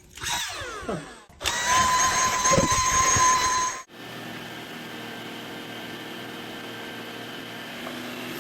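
Electric motor whining at a steady high pitch for about two seconds. After a sudden cut it gives way to a steadier, quieter low hum.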